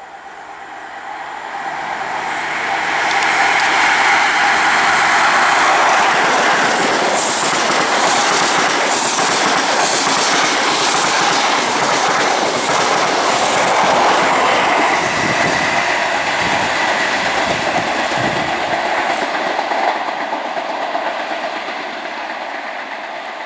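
Passenger train passing close at speed. It builds up over the first few seconds, clatters rhythmically as the wheels run over the rail joints, then fades away.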